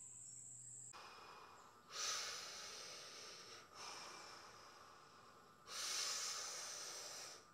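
A man breathing hard from exertion at the start of a set of bodyweight sissy squats: three long, noisy breaths, the first about two seconds in and the loudest near the end.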